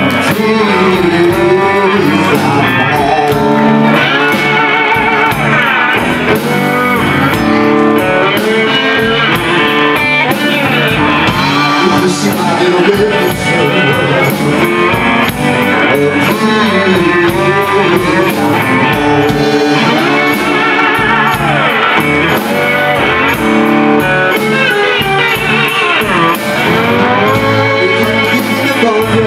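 Live blues band playing with electric guitar, bass guitar and drums, with gliding slide-guitar notes.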